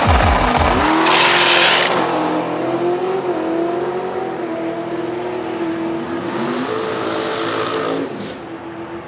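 Ford LTD drag car launching and accelerating down the drag strip. Its engine note climbs in steps through the gear changes and fades as the car pulls away, with a brief loud hiss just after the launch.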